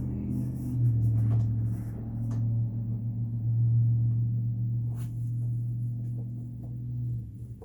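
A small electric motor humming steadily, with a few light clicks over it, cutting off about seven seconds in.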